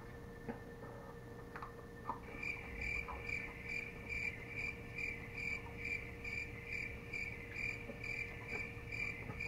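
A cricket chirping in an even rhythm, about two to three high chirps a second, starting about two seconds in, over a faint steady hum.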